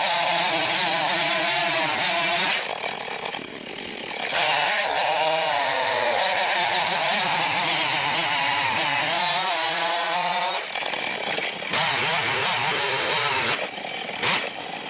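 Husqvarna two-stroke chainsaw cutting through a dead ash log at full throttle. The engine drops back briefly three times: a little before a third of the way in, about two-thirds in, and near the end.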